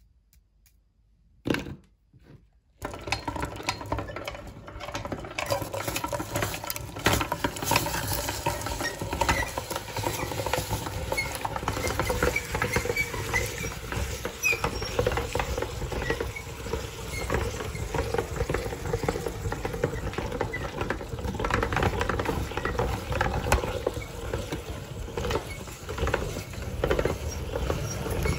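Hand-cranked metal meat grinder being turned, crushing frozen finger-shaped ice pops and forcing them out through the grinder plate: a steady grinding full of small crackles. It starts about three seconds in, after a single knock.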